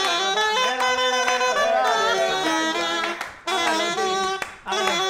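A band playing an instrumental passage of a song: a melody in stepped, held notes over accompaniment. The music drops out briefly twice, a little after three seconds and again around four and a half seconds in.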